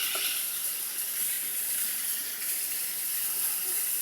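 Waterfall rushing: a steady hiss of falling water.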